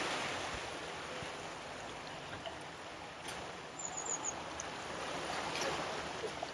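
Steady rushing of water flowing through a shallow ford, with a few faint high chirps about four seconds in.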